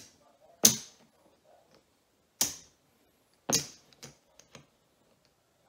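Poker chips clacking as they are stacked and set down by hand: a sharp clack about half a second in, two more at about two and a half and three and a half seconds, then a few lighter clicks just after.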